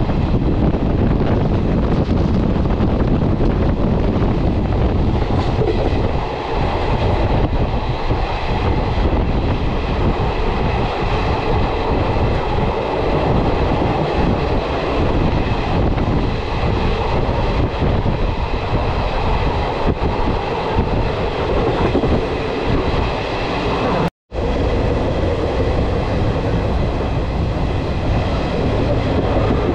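Passenger train running along the track, heard from an open coach doorway: a steady rumble of wheels on rails, with faint steady high tones over it. The sound cuts out for an instant about 24 seconds in.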